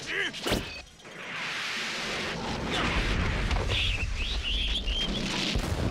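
Film sound effects: a sharp hit about half a second in, then a loud low rumble building under a wash of noise, with birds chirping as they take off from the tree about four seconds in.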